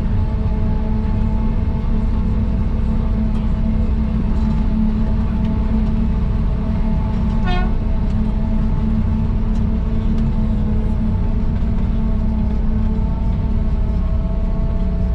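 John Deere 8400i self-propelled forage harvester running steadily, a loud even drone with a held hum. A short beep sounds once about halfway through.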